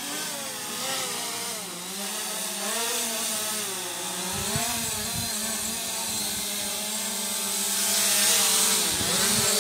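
SJRC F11 quadcopter's motors and propellers buzzing, the pitch wavering up and down as it flies back and descends to land. It grows louder toward the end as it comes closer.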